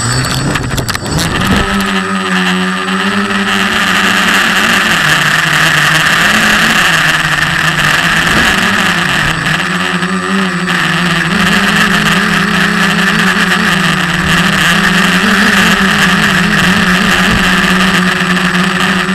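SK450 quadcopter's brushless motors and propellers running at flight speed, heard close from the camera on the airframe: a loud steady buzzing drone with a hissing whir, its pitch wavering now and then.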